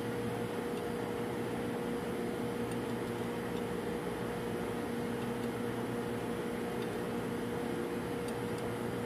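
Steady drone of running machinery with a constant mid-pitched hum, unchanging throughout, and a few faint ticks.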